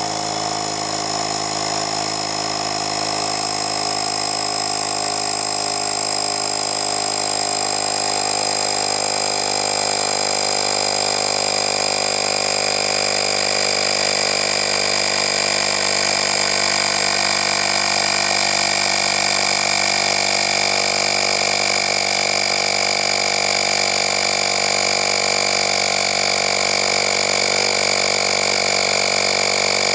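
Battery-powered portable tire inflator's 120 W motor and compressor running steadily, pumping up a tire as the pressure climbs. It grows slightly louder over the stretch.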